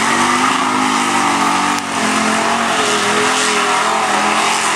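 Pickup truck engine revving hard as the truck powers through a mud bog. The revs rise and fall over a dense rush of noise.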